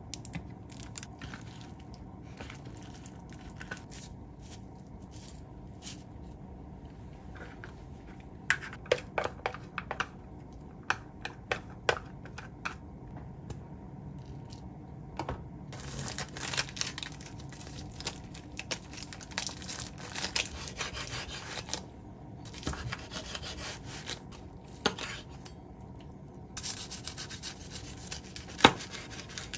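Hands making kimbap in a kitchen. There are scattered light taps and clicks of handling a plastic container and fillings, then stretches of crisp rustling as dried seaweed is rolled around the filling. Near the end a knife slices through the roll, with a sharp knock on the wooden cutting board.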